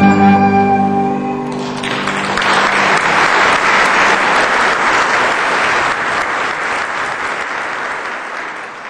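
The last chord of a slow Irish waltz on harp, guitar, tin whistle and accordion rings and dies away; about two seconds in, audience applause starts and carries on, tapering off near the end.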